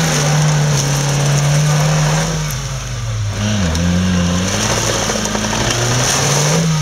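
Off-road 4x4 engine revving hard under load, held at high revs, dropping off briefly about two and a half seconds in, then climbing back and holding again.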